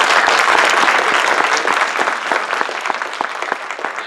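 A room full of people applauding, many hands clapping at once, loudest at first and gradually tapering off.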